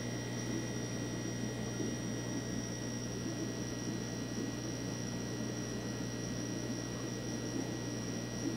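Aquarium filter equipment running: a steady low hum with a constant rushing, bubbling water noise and a faint high whine.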